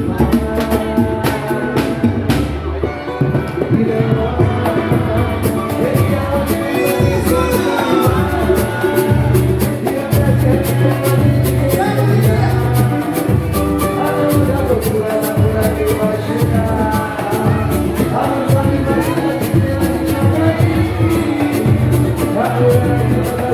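Samba-pagode music with a steady deep drum beat, fast percussion and voices singing throughout.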